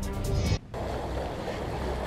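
Show theme music breaks off about half a second in, giving way to a steady rush of wind and sea water with a low rumble around a small round boat on open water.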